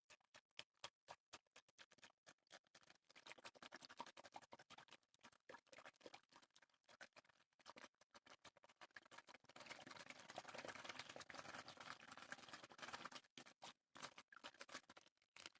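Close-miked ASMR water sounds: quick taps and small splashes in a fast, irregular run, growing denser and more continuous about two-thirds of the way in.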